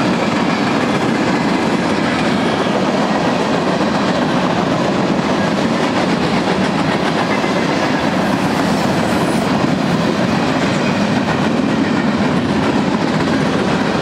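Freight cars of a manifest train rolling past, boxcars, tank cars and an auto-rack: a steady, even rumble and clatter of steel wheels on the rails.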